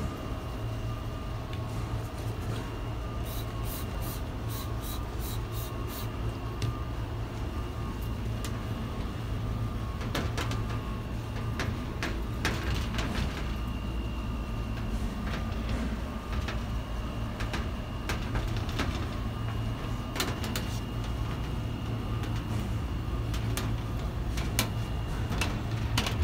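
A trigger spray bottle of isopropyl alcohol squirted in a quick run of about ten short hissing sprays about three seconds in, then a microfiber cloth wiping a hard glossy surface with scattered light rubs and clicks. A steady low hum runs underneath throughout.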